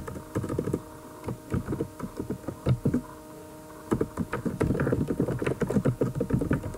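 Typing on a computer keyboard: a run of quick key clicks, coming thicker about four seconds in, over a steady electrical hum.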